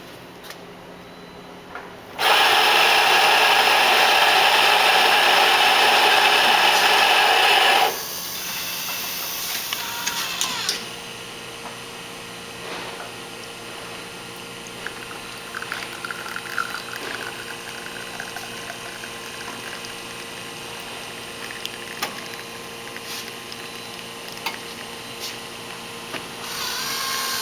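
Astoria espresso machine at work: a loud, even rushing noise for about six seconds that cuts off suddenly, then a quieter steady machine hum with scattered small clicks and knocks. Near the end the rushing rises again.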